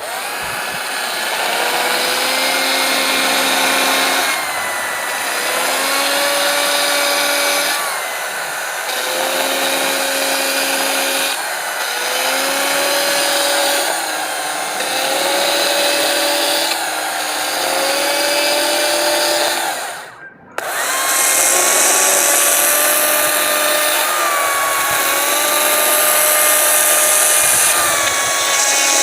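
Gas chainsaw carving wood, its engine rising in pitch with each throttle-up into the cut and falling back, over and over every two to three seconds. The sound breaks off for a moment about twenty seconds in, then the saw runs on.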